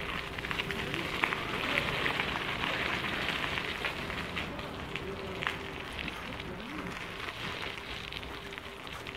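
Bicycle tyres rolling along a gravel towpath: a steady crackling crunch scattered with small clicks, with a faint steady hum underneath.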